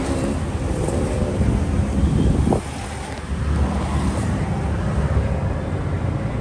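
Steady rumble of street traffic with wind buffeting the microphone, and a brief rising whine about two and a half seconds in.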